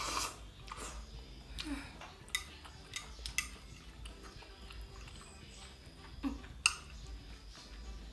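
Eating utensils clicking against a dish during a meal of noodles, with a few sharp clicks, the loudest about two-thirds of the way through, and quieter eating sounds between.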